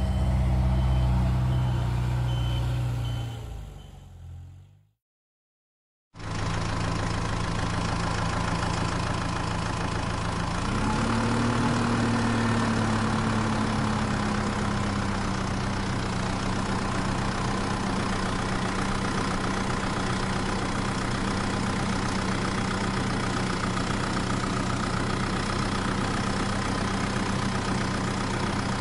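Tractor engine idling steadily, a low drone with a brief rise in pitch about ten seconds in. Just before it, a louder engine sound fades out and cuts to about a second of silence.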